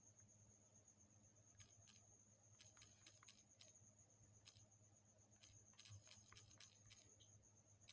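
Near silence: a faint steady hum and a thin high whine, with scattered faint clicks, some in quick clusters.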